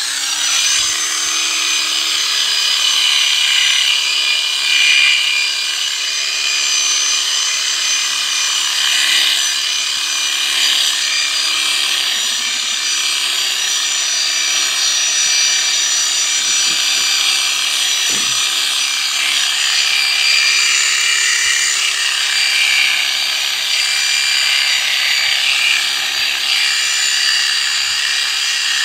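Electric sheep-shearing clipper (ST-777, 650 W) switching on and running steadily, its motor giving a steady hum under a high, shifting buzz as the cutter and comb work through a sheep's fleece.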